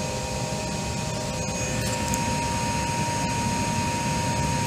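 Steady hum and hiss of the powered-up systems in an Embraer E-Jet cockpit on the ground, with a steady high tone joining about one and a half seconds in.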